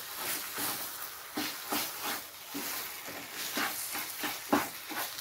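A wooden spoon stirs thick halwa frying in ghee in a pan, scraping and knocking against the pan in an uneven rhythm over a steady sizzle.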